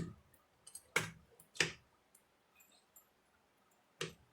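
Four sharp knocks and clicks of kitchen handling, with the two about a second and a second and a half in the loudest, in a quiet room.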